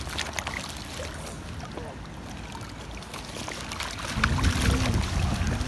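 Outdoor ambience: a steady hiss with scattered faint clicks, then wind buffeting the microphone, a low rumble that grows louder from about four seconds in.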